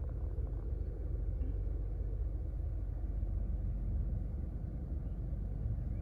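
Low, steady rumble of an idling vehicle engine.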